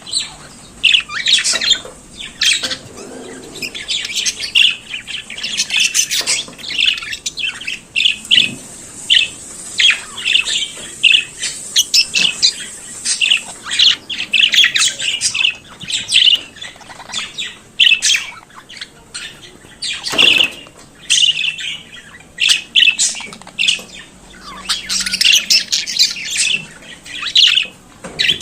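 Budgerigars chattering and warbling, a continuous stream of short, high chirps and squawks.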